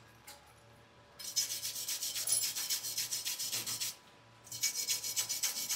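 Hand wire brush scrubbing a flux-core weld bead on thin sheet steel in quick back-and-forth strokes, clearing off slag and spatter. The scrubbing starts about a second in, stops briefly near four seconds, then starts again.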